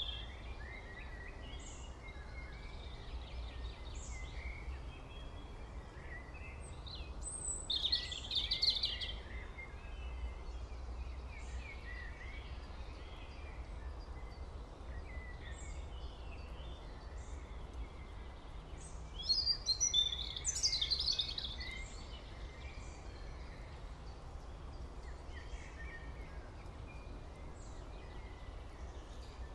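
Birds chirping and calling in the background, with louder bursts of calls about eight seconds in and again around twenty seconds, over a steady low hum.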